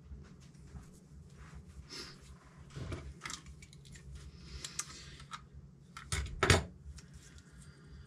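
Small plastic connector parts, cable and hand tools handled on a wooden workbench: scattered light clicks and rustles, with a louder clatter about six seconds in, over a steady low hum.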